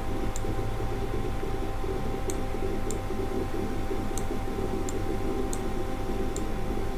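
Steady electrical hum and room noise, with faint, sharp clicks every half second to a second.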